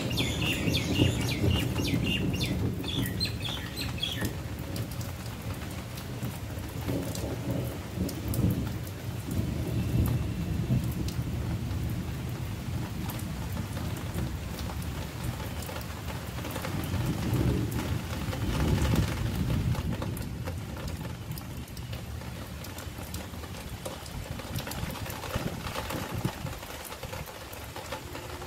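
Light monsoon rain falling as it nearly stops, with a low rumble that swells and fades several times. A bird chirps repeatedly in the first few seconds.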